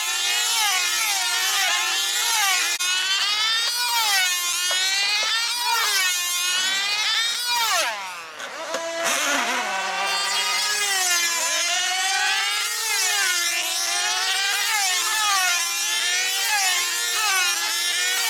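Small high-revving model aircraft engines of F2C control-line team racers. Their pitch rises and falls with every lap as the models circle, with several engines heard at once. The sound dips briefly about eight seconds in.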